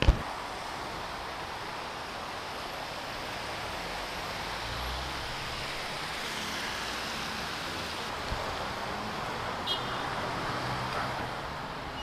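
Steady traffic noise of cars on a busy multi-lane city street, an even rushing hum, with one sharp click right at the start.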